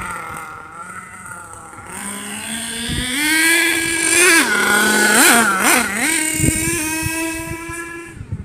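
HPI Savage nitro RC monster truck's small two-stroke glow engine running as the truck drives. Its pitch rises about three seconds in as it speeds up, it gets a couple of quick throttle blips near the middle, and then it holds a steady high speed.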